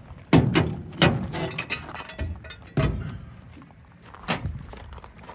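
Metal clanks and rattles of a jack stand and floor jack being handled on the trailer deck: about four sharp knocks spaced over the few seconds, with lighter rattling between them.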